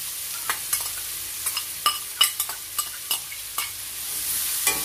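Chopped red onions frying in hot sunflower oil in a stainless steel pan: a steady sizzling hiss, broken by a string of sharp clicks and taps as a utensil stirs them.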